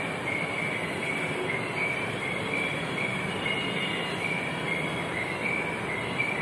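A high, squeaky chirp repeating about twice a second over a steady hiss.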